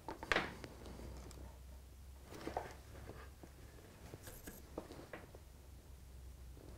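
Faint handling sounds: a few soft clicks and rustles as a soldering iron, its cable and a solder reel are picked up and moved, over a low steady hum.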